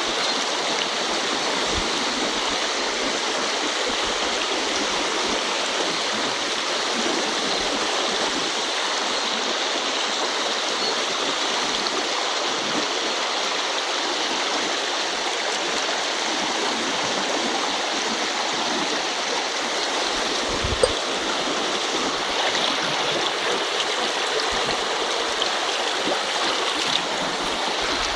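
Shallow river current flowing steadily over stones, an even unbroken rush of water, with one short knock about 21 seconds in.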